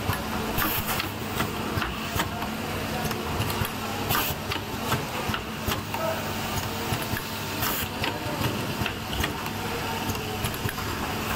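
Automatic USB cable soldering machine running: a steady hum broken by irregular sharp clicks and short hisses as its pneumatic cylinders work.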